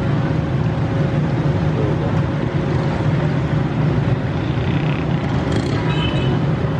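GE U20 diesel-electric locomotive's diesel engine running steadily as it approaches slowly through floodwater over the track, a low, even rumble.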